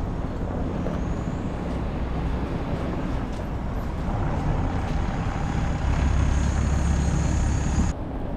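A large motor vehicle's engine running with a steady low rumble and a faint high whine over it. The sound cuts off abruptly near the end.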